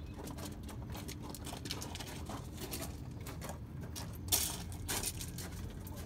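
Irregular small clicks and taps of parts and tools being handled under the truck, with two louder scraping rustles about four and five seconds in, over a steady low hum.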